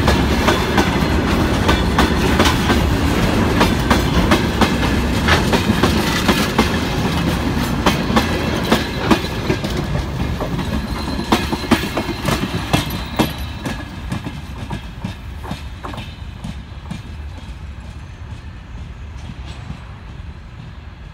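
Freight wagons rolling past on the rails: a steady low rumble with sharp wheel clicks over the rail joints. The sound fades gradually through the second half as the last car rolls away.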